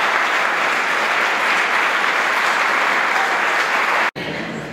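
Audience applauding steadily, cut off abruptly about four seconds in, after which only quieter room sound remains.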